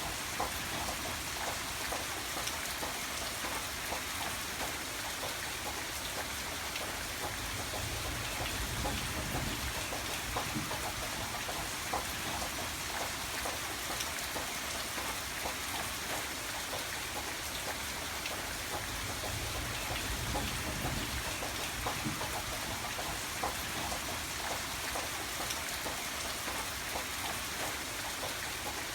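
Steady, heavy rain falling on a surface, a dense patter of drops, with a low rumble swelling up twice underneath.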